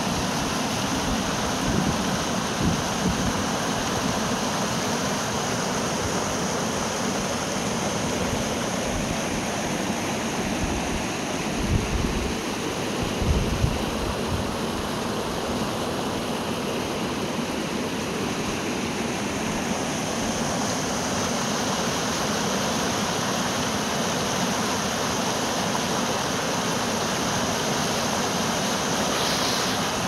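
Steady rush of a small stream cascading over volcanic rock ledges into the sea, mixed with waves washing over the rocks. A few low thumps come about halfway through.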